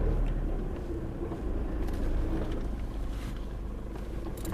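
Four-wheel-drive vehicle's engine running at low revs, a steady low rumble. A sharp click near the end.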